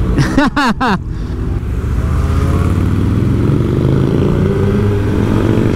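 Kawasaki Ninja sportbike's engine pulling away from a stop and accelerating gently, its note rising slowly, with wind and road noise.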